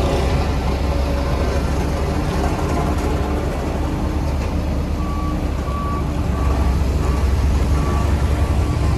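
Heavy diesel construction machinery running with a steady low engine rumble. About halfway through, a reversing alarm starts beeping, about one and a half beeps a second.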